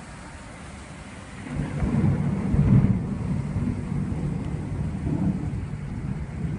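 Thunder rumbling over a heavy downpour: a low rumble swells about a second and a half in, is loudest near three seconds, then rolls on and slowly fades.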